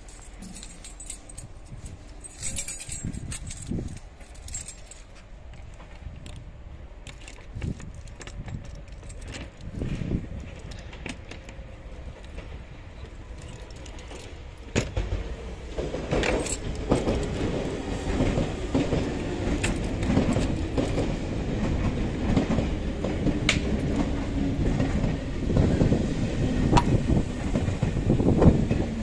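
MI79 electric multiple unit running on the track: a low rumble with many sharp clicks and knocks from the wheels and running gear, getting clearly louder about halfway through.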